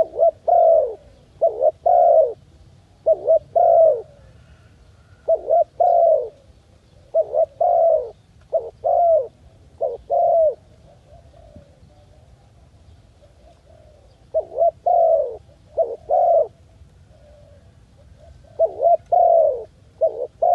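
A dove cooing: short low hooting notes in groups of two or three, repeated every second or two, with a pause of a few seconds about halfway through.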